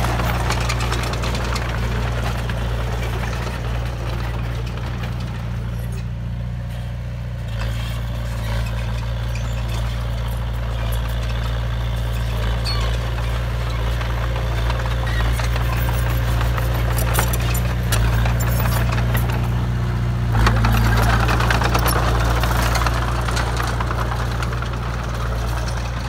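Komatsu D20A small crawler bulldozer's diesel engine running steadily under load as it pushes soil, with a fine clatter from the steel tracks. It grows louder about twenty seconds in.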